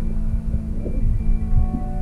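Background music with sustained notes over a low rumble.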